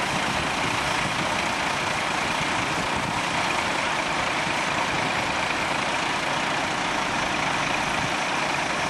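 Fire appliances running steadily at the fireground, a constant even noise with no breaks or changes.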